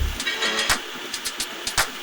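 Background music at a sparse break, the bass dropped out, with sharp percussive hits about once a second.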